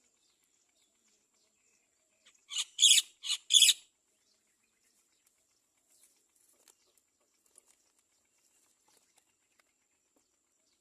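Great mynas at the nest giving a quick run of four short, harsh calls about two and a half seconds in, then only faint scattered clicks.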